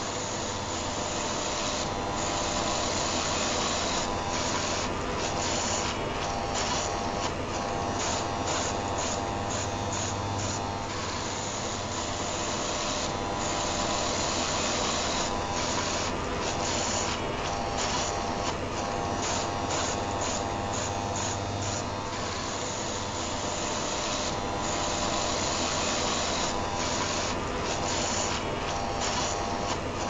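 A rotary electric shaver running continuously, layered with the steady whir of an electric heater, used as white noise: an even buzzing hiss over a low hum.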